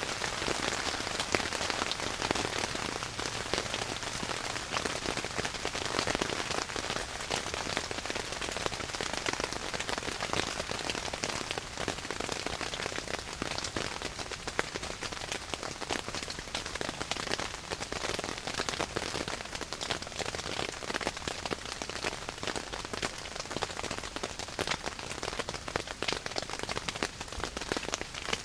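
Heavy rain falling on a yurt tent: a steady, dense hiss of countless small drop hits.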